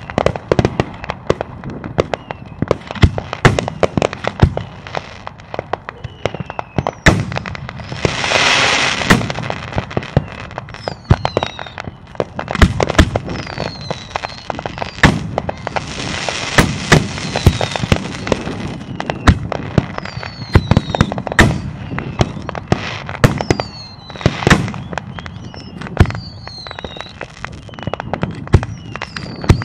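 Fireworks display: a rapid, irregular series of bangs and booms from bursting aerial shells. Two stretches of dense hiss come about a quarter and about halfway through.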